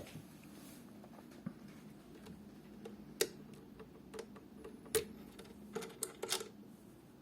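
Irregular sharp clicks and light knocks over a low steady background, with a loud one about three seconds in, another about five seconds in, and a quick cluster of several a second later: an unwanted extraneous noise.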